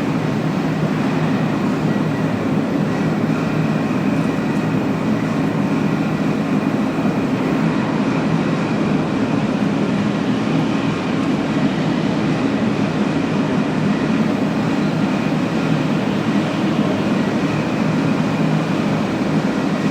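Steady machinery hum with a constant mix of low drone and hiss and a faint steady high tone, not changing in level.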